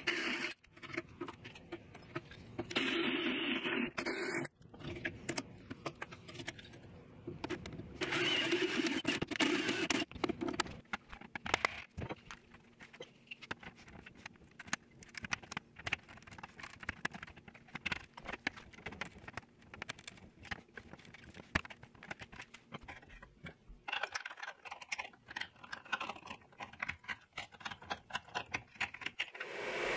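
Cordless drill with a step bit cutting through a clear plastic case in three short bursts over the first ten seconds, then scattered clicks and scrapes as the plastic case is handled.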